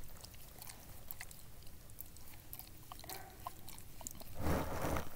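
A dog licking a person's face right at the microphone: soft wet licks and little smacking clicks. A louder, noisier stretch lasting under a second comes near the end.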